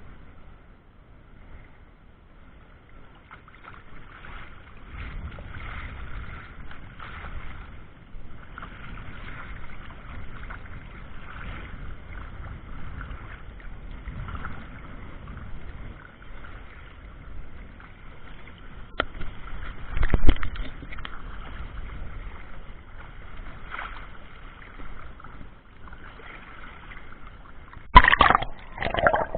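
Sea water and waves sloshing, muffled as heard through a camera's waterproof case, with a sharp knock about twenty seconds in and a louder burst of splashing near the end.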